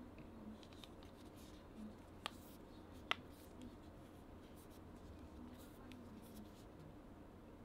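Faint handling sounds of a Funko Pop vinyl figure being turned in the hand, light rustles and scrapes over quiet room tone, with two small sharp clicks about two and three seconds in.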